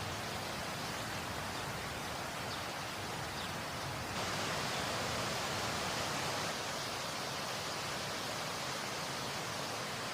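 Waterfall rushing steadily, a little louder for a couple of seconds around the middle.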